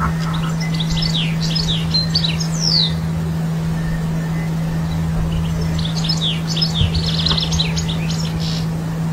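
European goldfinch singing: two bouts of quick twittering notes, the first in the opening three seconds and the second from about six seconds in until near the end, over a steady low hum.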